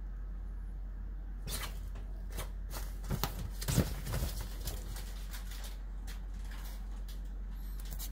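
Fabric rustling and scraping against a pop-up play tent, with a run of sharp scrapes and taps from about a second and a half in to about five seconds in, over a steady low hum.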